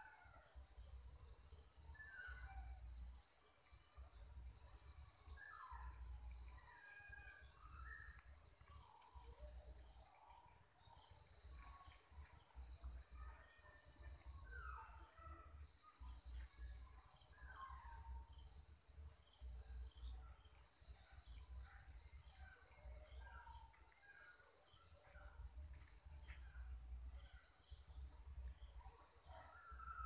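Evening insect chorus of crickets and other insects: a steady, high-pitched trill with rows of quick repeated chirps just below it, and scattered short calls at a lower pitch throughout.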